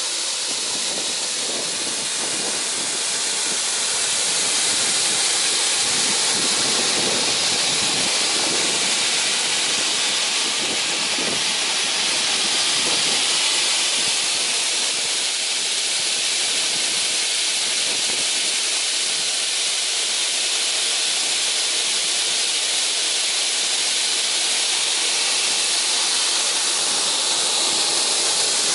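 Holzmann FKS 400VF-3200 panel saw running free with no cut, its motor and spinning blade giving a steady hiss that gets a little louder a few seconds in.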